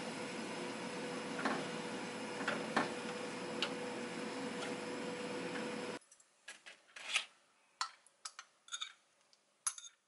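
A steady kitchen hum with a few light clinks of a spoon against a bowl as food is scooped out. About six seconds in the hum stops, leaving scattered light taps and clinks of dishes on a table.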